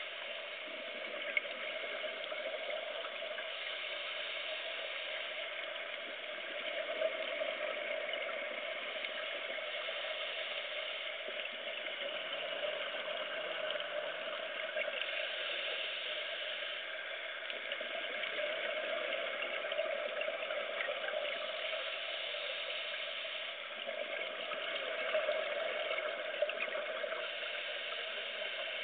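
Underwater ambience picked up through a dive camera's waterproof housing: a steady muffled hiss with a constant low drone and scattered faint crackles and clicks.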